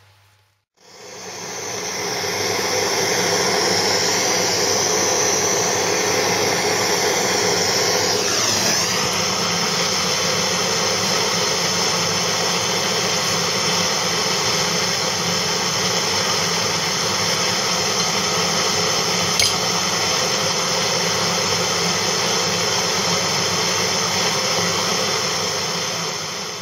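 A running power tool's steady whirring hiss, fading in at the start and out at the end. Its pitch shifts briefly about a third of the way in, and there is one sharp click about two-thirds of the way through.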